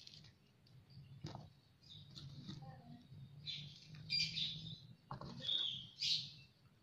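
Birds chirping in short, scattered high bursts, over a faint steady low hum.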